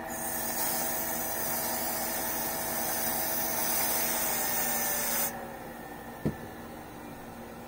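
A loud spray hiss for about five seconds, cutting off suddenly, over the steady whine of a Pierburg CWA 400 electric coolant pump spinning dry at full speed. The spray cools the pump's temperature sensor, and near the end of the hiss the pump's whine starts falling in pitch as the pump slows. About a second after the hiss stops there is a single sharp click.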